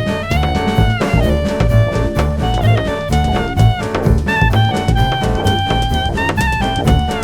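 Background music: an upbeat jazzy track with a drum kit keeping a busy beat and a brass lead line.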